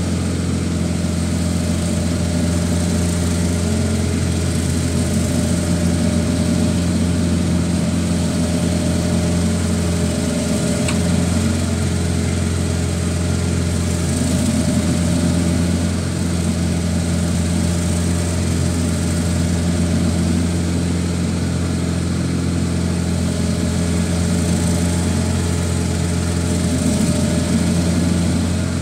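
Self-propelled wheeled stump grinder's engine running steadily at working speed while its cutter wheel grinds into a tree stump.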